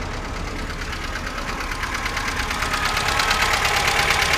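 VAZ-2107's fuel-injected four-cylinder engine idling with a fast, even metallic rattle, growing louder about two seconds in. The owner cannot tell whether the rattle comes from the valves, a worn timing chain or the camshaft; a mechanic put it down to worn camshaft lobes.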